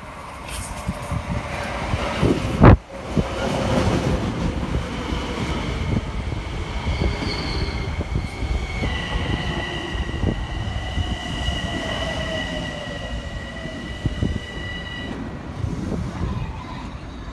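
Metro-North M7A electric multiple unit pulling into the station and slowing, with wheel and rail rumble. A steady high whine from its traction drive steps down in pitch about halfway through, and a lower whine glides down as the train slows. A single loud thump comes about three seconds in.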